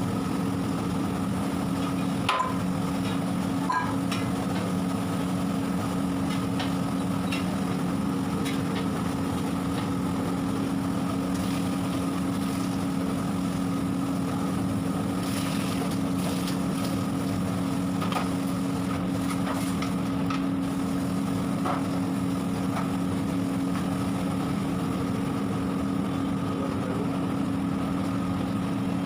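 A steady mechanical hum with a low, even drone, broken by a few light knocks or clinks, most clearly at about two and four seconds in.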